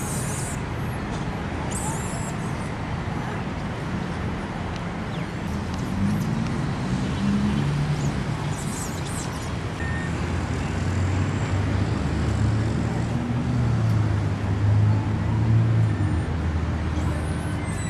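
Road traffic: the low rumble of vehicle engines, steady, growing louder from about six seconds in and easing off near the end.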